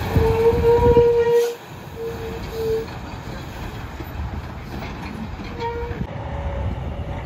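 Semi truck's air horn: one long blast of about a second and a half, then two short toots, and another short toot later on, over the rumble of the diesel tractor pulling away.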